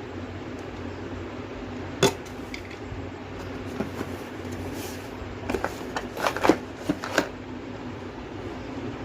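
Clicks and knocks of hard parts being handled during an unboxing: one sharp knock about two seconds in, then a quick run of clicks between five and seven seconds, over a steady background hum.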